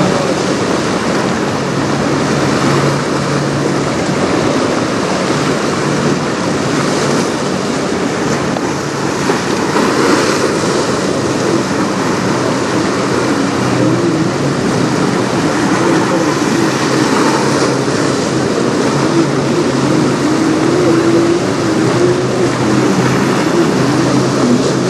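Steady rush of wind and moving river water with a low hum under it. From about halfway through, a jet ski's engine whines in, its pitch wavering up and down and growing louder near the end.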